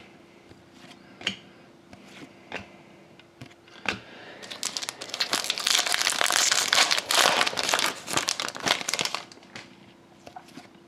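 Plastic trading-card pack wrapper being torn open and crinkled by hand, a dense crinkling from about four and a half seconds in that dies away about five seconds later. Before it come a few light clicks of cards being handled.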